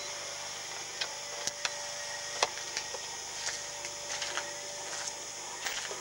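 Steady hiss and faint hum of a camcorder's tape mechanism, with scattered light clicks and taps.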